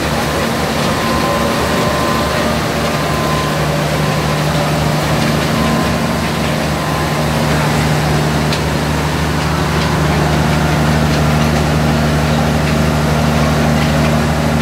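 Small sugar-cane plant's machinery running steadily: a rotating drum and chain conveyors turning, with a constant low motor hum under an even mechanical noise that grows a little louder about two-thirds of the way through.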